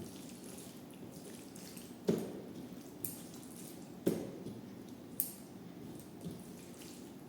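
Close-up eating sounds of a person eating rice and dal: wet chewing and squishing, with a few sharp clicks about a second apart.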